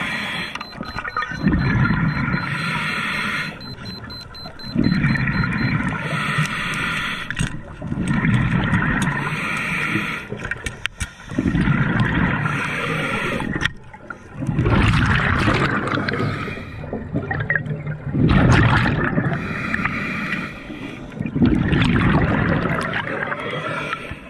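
Scuba diver breathing through a regulator underwater: a hissing inhale followed by a louder gurgling rush of exhaust bubbles, repeating about every three seconds.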